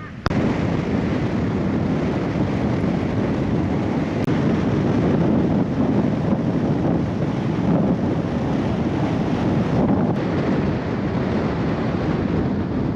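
Creek water rushing in a steady, even roar that starts abruptly.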